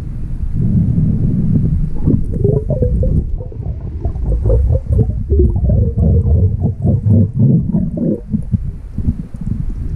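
Underwater rumble of water moving around the camera as a freediver swims down towards a kelp reef, with a run of quick bubbling gurgles from about two seconds in until near the end.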